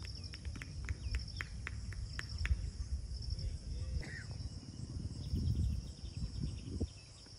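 Insects trilling steadily in a high-pitched drone over a low rumbling. A quick run of short chirps comes in the first two and a half seconds.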